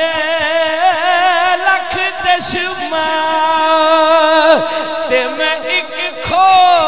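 A man singing a devotional verse with long, wavering, ornamented held notes over a steady lower held note, with a few sharp clicks.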